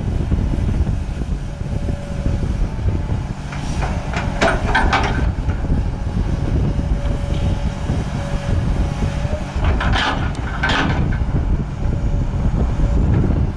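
Case CX240 excavator running, its diesel engine rumbling steadily under a faint steady whine while it moves its boom and bucket. Short bursts of clanking come about four seconds in and again about ten seconds in.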